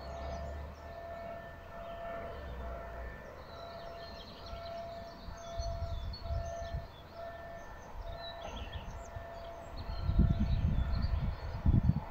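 Level crossing warning signal sounding, a steady electronic tone that repeats with short breaks: the crossing is warning of an approaching train. Birds chirp, and irregular low rumbles grow loud near the end.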